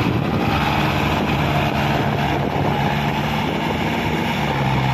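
Mahindra Arjun Novo 605 DI 4WD tractor's four-cylinder diesel engine running steadily under load, hauling a fully loaded trolley through deep mud.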